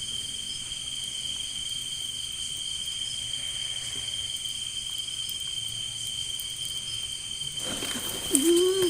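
Steady chorus of crickets, a constant high-pitched trill. Near the end a short low call rises and falls.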